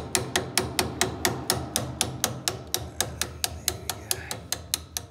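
Rapid, evenly spaced metal-on-metal taps, about four or five a second, of a small hammer striking a pin punch to drive a taper shear pin out of a lathe's feed shaft collar.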